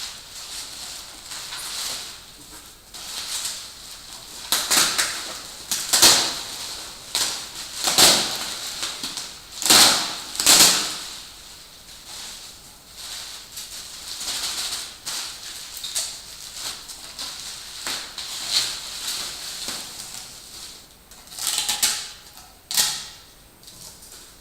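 Packing wrap rustling and crinkling in irregular handfuls as a wrapped glass hookah vase is unwrapped, with several sharper crackles.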